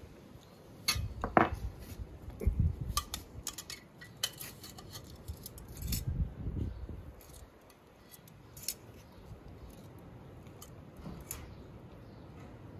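Metal tongs clicking and scraping against a large black saj pan as grilled vegetables and meat are lifted onto a plate: scattered sharp clinks, the loudest in the first few seconds, with a few dull knocks.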